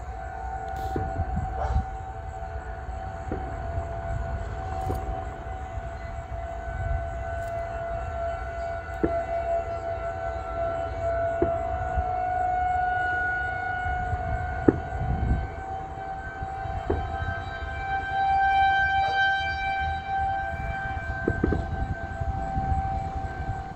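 Federal Signal 2001SRN outdoor warning siren sounding a steady wail for a severe thunderstorm warning, its pitch holding nearly level while it swells louder and fades again. A low rumble runs underneath.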